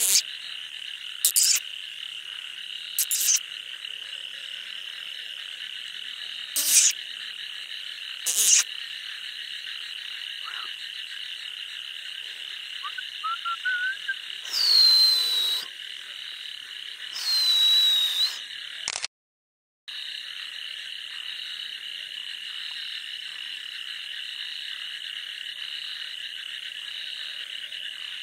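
Night chorus of frogs in a wet paddy field: a steady high trilling chorus with loud single frog calls every couple of seconds and two longer calls near the middle. The sound cuts out completely for under a second about two-thirds of the way through.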